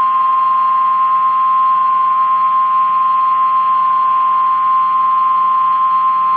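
Emergency Alert System single attention tone at about 1050 Hz, the NWS warning alarm tone, held as one steady, unbroken, loud beep. It signals that a spoken weather warning, here a flash flood warning, is about to follow.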